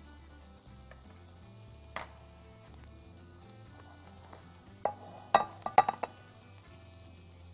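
Pigeons sizzling as they fry in a pan, a soft steady hiss. About five seconds in comes a quick run of sharp, ringing clinks of kitchenware against ceramic dishes, the loudest sounds, after single clicks near two seconds and just before five.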